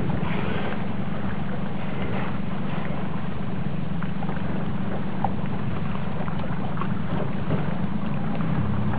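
A boat's engine running steadily with a low hum, with wind noise on the microphone.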